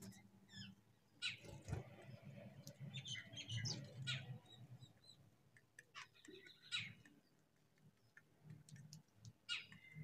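Faint, short bird chirps, a few at a time at scattered moments, over a low background hum.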